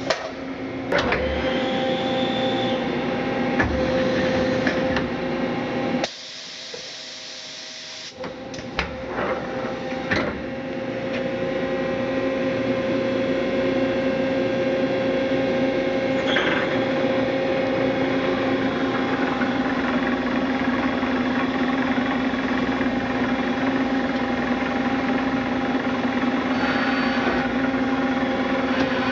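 Mazak H400 horizontal machining center running under power, a steady mechanical whine and hum with a few sharp clicks and knocks in the first several seconds. The sound drops away briefly about six seconds in, then comes back and runs steadily.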